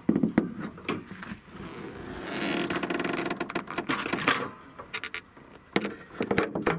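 Car hood being unlatched and lifted. Clicks and knocks come from the latch and from handling in the first second, then there is a long creaking scrape for about two seconds as the hood goes up, and more knocks near the end.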